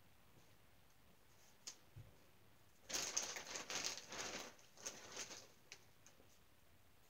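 Faint rustling and crinkling of clothes being handled, lasting about two and a half seconds from about three seconds in, after a few small clicks.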